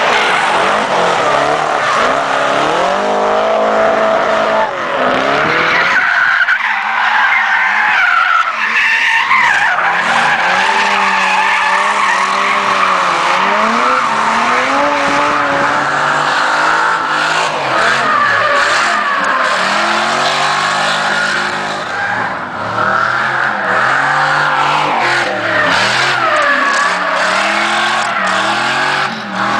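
BMW drift cars sliding sideways with tyres squealing, their engines revving up and down again and again as the throttle is worked through the slides.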